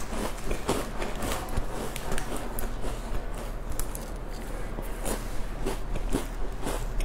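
Close-up chewing and biting of a dry cracker snack: repeated small crunching clicks and mouth sounds.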